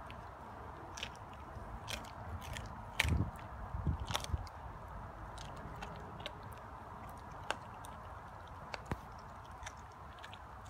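German shepherd biting and chewing at a whole raw chicken: scattered wet clicks, with a louder run of bites about three to four seconds in.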